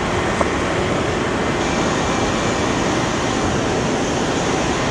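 Steady rush of water pouring over a spillway dam, with a single short click about half a second in.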